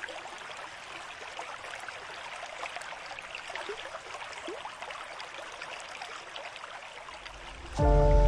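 Water trickling and lapping, a busy patter of small drips and splashes. Near the end, music comes in loudly with sustained held notes over deep bass.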